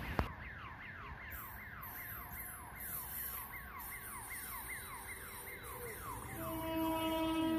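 An electronic warning siren sweeping down in pitch over and over, about three sweeps a second. About six seconds in, a train horn starts up with one steady held note.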